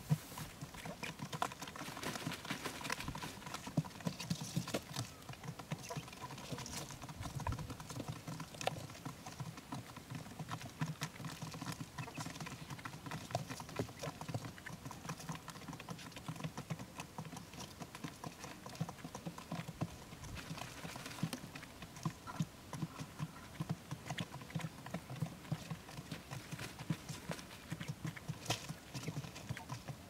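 Quail pecking at grain scattered on a cardboard sheet: a rapid, irregular patter of small taps.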